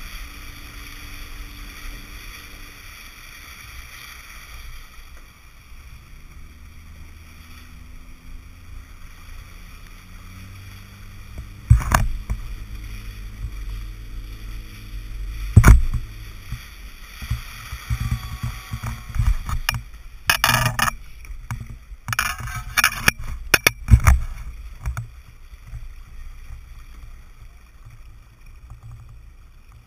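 Water rushing along the hull of an International 14 skiff under sail, with wind on the camera. Loud knocks come about twelve and sixteen seconds in, then a stretch of splashing and clattering as the skiff capsizes, followed by a quieter wash of water.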